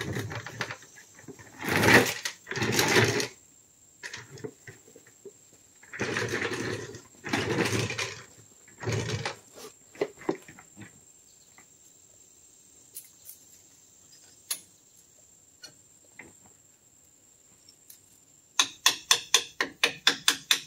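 Hand work on a pickup's front brake assembly: several short, rough scraping strokes with a few light metal clicks, then, near the end, a quick even run of hammer taps on metal brake parts, about three a second.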